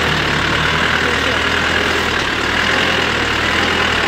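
Vehicle engine running steadily at low speed, heard from inside the cab as it crawls up a rutted dirt track.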